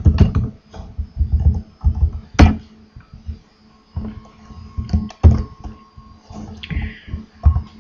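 Computer mouse clicks and keyboard taps, a run of short, irregular clicks, the sharpest about two and a half seconds in.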